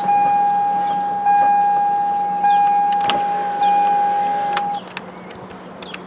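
A car's dashboard warning buzzer sounding one steady high tone, re-struck about every second and a quarter, which stops about five seconds in. Two sharp clicks come near the end of the tone.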